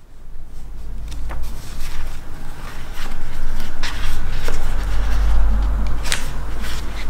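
Pages of a thick paperback book being leafed through: a few short, crisp rustles of paper. Under them runs a steady low rumble, louder from about four seconds in.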